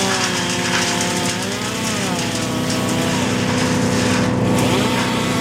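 Petrol engines running: a steady engine drone under a chainsaw whose pitch rises and falls as it revs.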